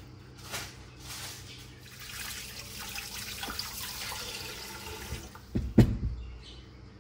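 Silicone spatula scraping cake batter out of a glass mixing bowl, then a steady rushing hiss for a few seconds. Near the end, a few heavy knocks as the filled ceramic baking dish is handled against the table.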